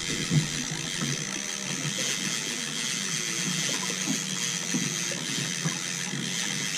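Okuma spinning reel cranked steadily to wind in a hooked fish, its gears ticking throughout, over a steady low hum.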